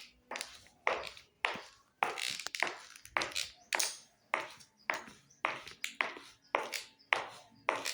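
Footsteps walking at a steady pace, about two steps a second, each a sharp step with a short scuffing tail.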